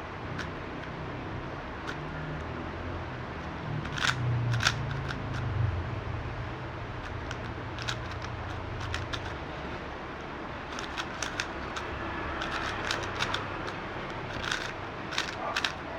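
Magnetic speed cube being turned by hand, its layers clicking in quick clusters, over a steady low hum.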